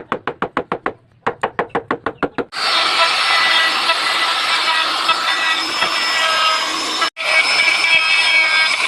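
A fast run of sharp knocks on wood, about eight a second, with a short break about a second in. From about two and a half seconds a loud, steady workshop noise with whining tones takes over, and it drops out for an instant near the end.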